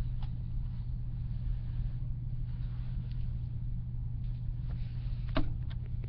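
A steady low hum, with a single short knock about five and a half seconds in.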